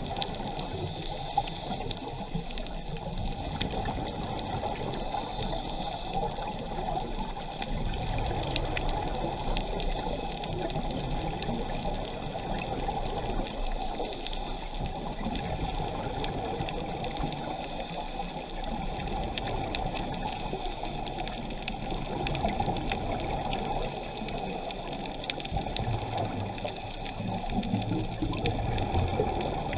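Steady underwater wash of water noise picked up by a diving camera in its waterproof housing, strongest in the low range and even in level throughout.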